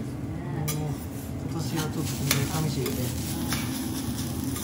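Two metal spatulas scraping and tapping on a hot steel teppanyaki griddle as egg fried rice is chopped and turned, with several sharp clinks over the sizzle of the frying rice.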